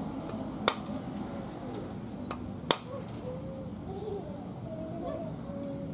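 A small hammer taps a wooden hand plane: two sharp taps about two seconds apart, the second the loudest, with a lighter tick just before it. These are the taps that set the plane's blade. Birds chirp faintly in the background.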